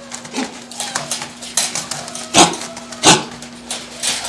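Caged dogs barking in a shelter kennel: several sharp barks, the loudest two about two and three seconds in, with a short yelp that falls in pitch, over a steady low hum.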